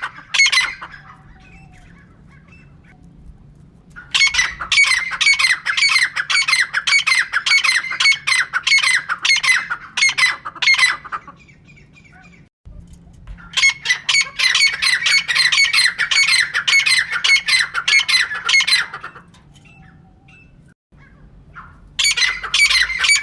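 Female francolin (teetar) calling: three long bouts of rapid, harsh, repeated squawking notes, a few a second, separated by pauses of two to three seconds.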